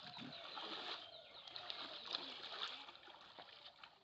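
Birds chirping, many short high calls overlapping, with faint water splashing.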